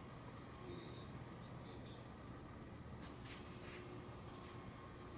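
A cricket chirping in an even, rapid run of high pulses, about seven a second, which turns much fainter near the end. A brief light rustle comes just before the drop.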